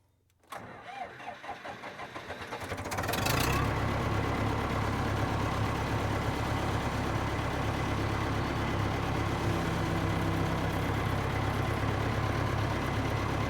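Massey Ferguson 300 crawler dozer's engine being started: it cranks with a pulsing sound for about two seconds, catches about three seconds in and settles into a steady run.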